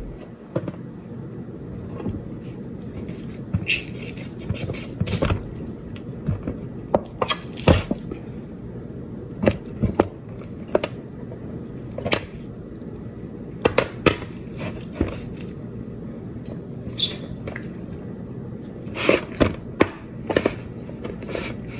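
Hands pulling apart raw turkey wings in an aluminium foil pan: scattered, irregular small clicks and taps over a steady low hum.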